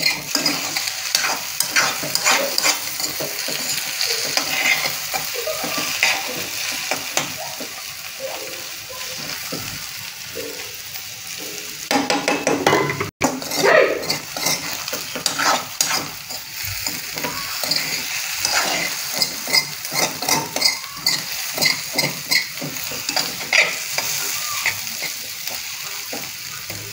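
Masala egg bhurji (spiced scrambled eggs) sizzling as it fries in a nonstick kadai, with a spatula stirring and scraping against the pan in quick, irregular strokes. The sound cuts out for a moment about halfway.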